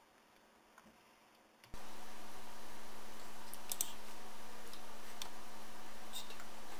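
Near silence with a few faint clicks, then about two seconds in a steady microphone hiss and hum switches on abruptly, with scattered computer clicks over it.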